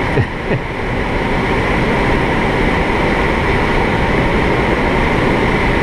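Steady rush of air streaming past a PW-6U glider's cockpit in unpowered flight, with no engine. It is the airflow noise that glider pilots listen to for their airspeed.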